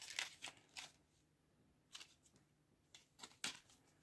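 Clear plastic blister packaging crinkling and clicking as it is handled and turned over, in three short bursts of crackles: at the start, about two seconds in, and just after three seconds in.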